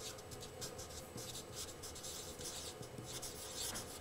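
Felt-tip marker writing on a whiteboard: faint, irregular short scratchy strokes as the letters are drawn.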